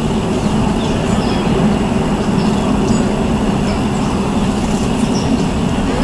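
Steady low rumble of vehicle traffic, with faint short bird chirps over it now and then.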